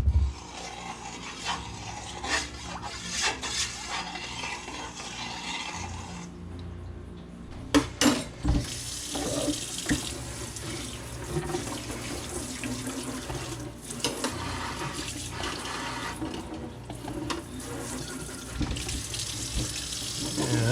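Water running from a kitchen tap into a sink, with a few knocks of dishes; the flow stops briefly about six seconds in and starts again after a couple of clunks.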